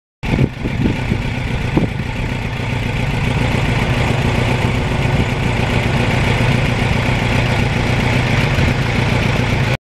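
1989 Kawasaki Ninja GPX750R's inline-four engine idling steadily, with a few sharp knocks in the first two seconds.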